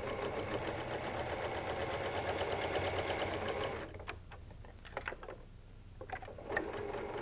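Domestic electric sewing machine stitching steadily through fabric, then stopping a little past halfway. A few light clicks follow as the machine is paused to lift the presser foot and pivot the work, and the stitching starts again near the end.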